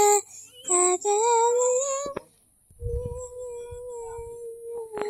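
A high voice sings a few short notes, then a longer note that slides a little upward. From about the middle it holds one long steady note that fades gently, hummed or sung softly.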